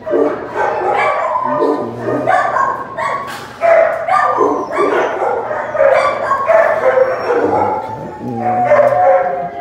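A dog crying out in a near-continuous run of short, pitched yelps and whines that rise and fall in pitch.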